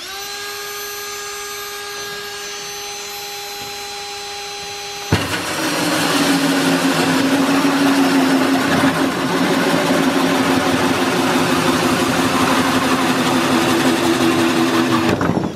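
Electric drill with a hole saw cutting through a fiberglass bumper. The motor first whines steadily at a high pitch, then about five seconds in the saw bites and a loud rasping cutting noise takes over, the motor pitch dropping under load, until it stops just before the end.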